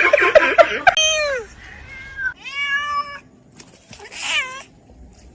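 Domestic cat meowing three times: a falling meow about a second in, a longer meow in the middle, and a higher one near the end. A person laughs over the first second.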